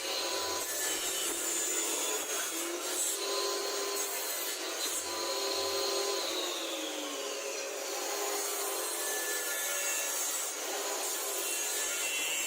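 Steady rasping of a tool working on wood, continuous without clear pauses.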